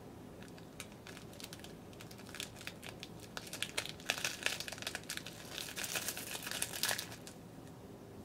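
Crinkling of freeze-dried food packaging handled in the hands: a string of dry crackles that grows louder through the middle and dies away near the end.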